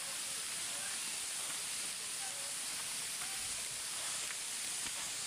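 Creek water running, a steady hiss with no breaks.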